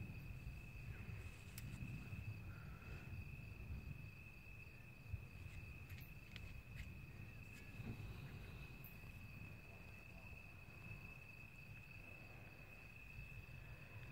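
Steady high-pitched insect trill, typical of crickets at night, running unbroken over a faint low rumble.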